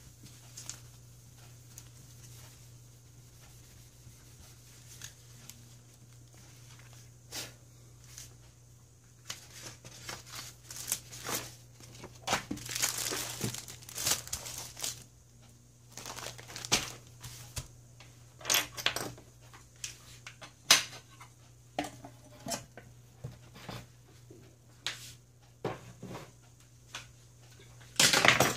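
Tissue paper and plastic sheeting rustling and crumpling in irregular bursts as the repaired iPad is wiped and handled, with a loud burst near the end.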